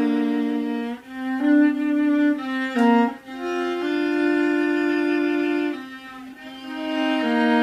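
Viola played with the bow: a slow melody of long held notes, each note changing every second or two, with a short dip in loudness about six seconds in.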